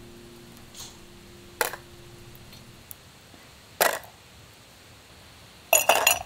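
A few scattered short clinks and knocks of small objects being handled, the loudest cluster near the end. A held music chord fades out over the first couple of seconds.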